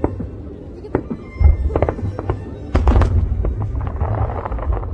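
Fireworks shells bursting in the air: a run of sharp bangs, roughly half a second apart, starting about a second in, over a deep rumbling boom.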